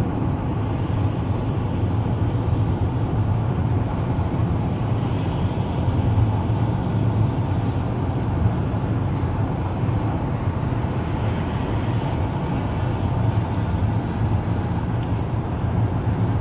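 Steady road noise inside a car's cabin at highway speed: a low, even rumble of tyres and engine.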